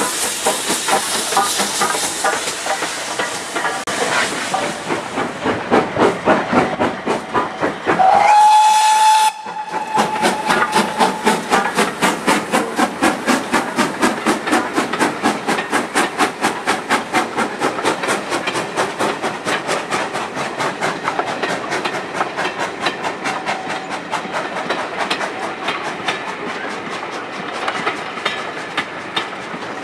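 GWR 42xx-class 2-8-0 tank steam locomotive puffing with rhythmic exhaust beats and a hiss of steam. It gives one blast of its steam whistle about eight seconds in, the loudest sound, and then carries on chuffing steadily as it pulls its train.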